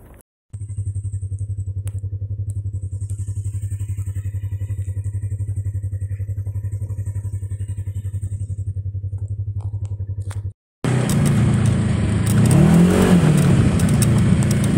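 Side-by-side UTV engine running with a steady, evenly pulsing hum. After a brief break about ten seconds in, it runs louder and rougher while moving, revving up and back down twice.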